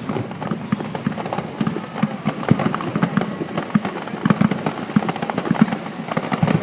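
Aerial fireworks going off in rapid succession: a dense, unbroken run of booms and crackling pops.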